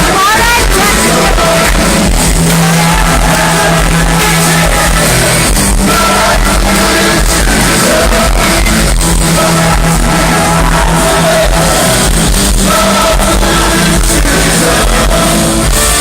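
Loud rock music with a singing voice over a steady bass line, with shouts from a crowd mixed in.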